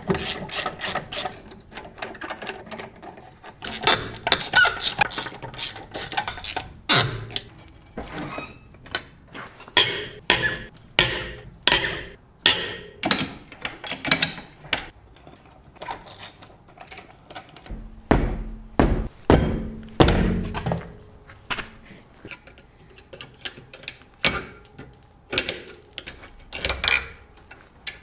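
Hand tools clicking and knocking against metal parts while a car's rear brake pads are being changed: repeated sharp clicks in bursts about every half second to a second, with a few heavier low thunks about two-thirds of the way through.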